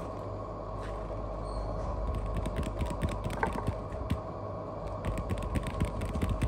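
Scattered light clicks and scratches as a kitten's paws and claws and a person's fingers move on a foam play mat, over a steady hum with a few fixed tones.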